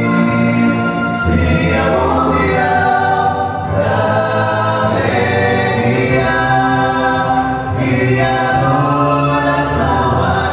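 Male vocal quartet singing a gospel song in close harmony through microphones, the chords held and changing every second or two.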